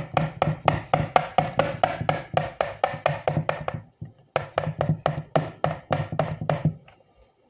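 A spoon knocking against a mixing bowl in quick, even strokes, about six a second, as peanut butter is stirred into the batter. The strokes pause briefly about four seconds in, then start again.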